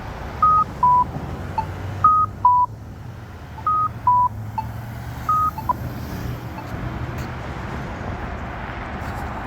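Accessible pedestrian signal at a crosswalk sounding a two-tone electronic chime, a higher beep then a lower one, four times about one and a half seconds apart, then stopping about six seconds in. Traffic noise runs underneath.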